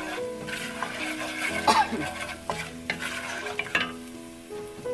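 A spoon scraping and clinking against a pot while stirring ground spices frying in hot oil, with a sizzle underneath. There are a few sharp clinks, the loudest under two seconds in.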